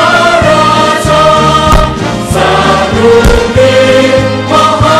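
Loud choral music with long held sung notes, and a few sharp thumps cutting in.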